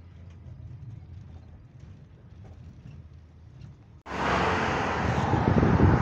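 Low, steady rumble of a car's engine and tyres heard from inside the cabin; about four seconds in, an abrupt cut to loud, gusty wind noise on the microphone.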